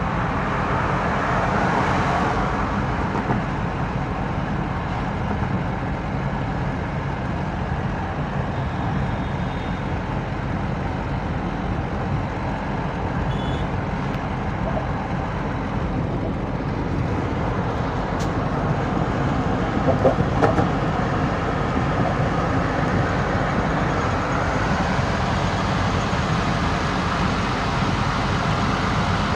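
Steady road traffic noise of passing vehicles, with a brief louder sound about twenty seconds in.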